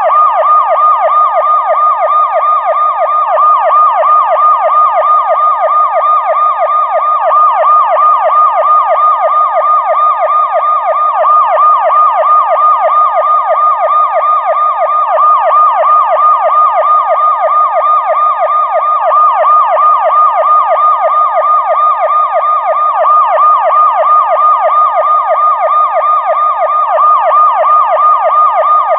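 Police car siren in a fast yelp, its pitch sweeping rapidly up and down several times a second without a break.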